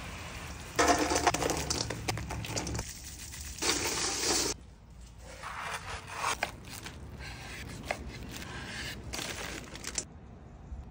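Short bursts of cooking noise cut one after another: hissing scrapes and rustles, among them a metal spatula scraping under a crusted steak on a cutting board, with a few light clicks. The two loudest bursts come early, and it goes quieter near the end.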